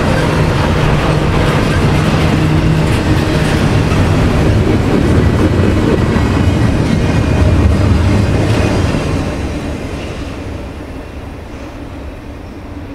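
Double-stack intermodal well cars of a freight train rolling past, the wheels rumbling and rattling on the rails. The last car goes by about nine seconds in and the noise fades away.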